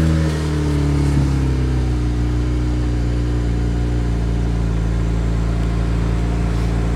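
2009 BMW 135i's twin-turbo inline-six just after being started: the start-up flare eases down over the first second or so, and the engine then settles into a steady idle.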